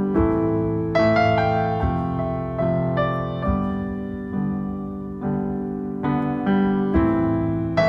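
Background music: a slow, gentle piano melody over chords, notes struck every half second to a second and left to fade.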